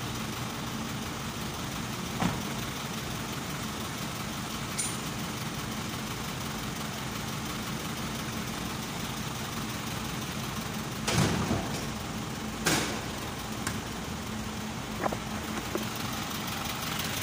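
Isuzu 4HK1 four-cylinder diesel idling steadily, running again after an ECM relay was replaced to cure a crank-but-no-start fault. Two loud metal clunks come about 11 and 13 seconds in as the tilted cab is let down.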